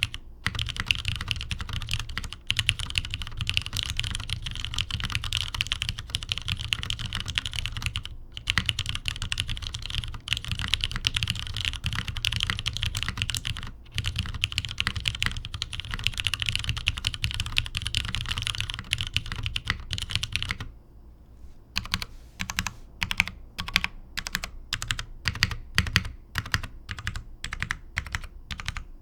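Typing on a custom Geonworks Glare mechanical keyboard with an aluminium top-mount plate, lubed Cherry MX Nixie switches on heavy 150g springs, and GMK keycaps. Fast, continuous typing gives way about two-thirds of the way in to slower, single keystrokes, each clack heard on its own.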